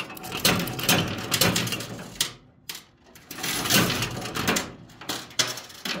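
Coins clinking and clattering inside a coin pusher arcade machine as a coin is dropped in and the sliding shelves push the pile, an irregular string of clicks and clacks.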